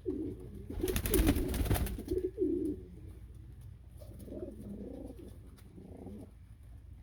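Domestic pigeons cooing: repeated low, rolling coos, with a louder rustling burst about a second in.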